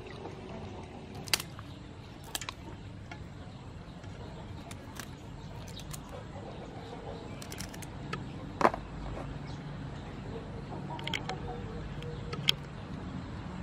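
Kitchen scissors snipping through the shells and whiskers of big river prawns: about five sharp, separate snips a second or more apart over a low steady background.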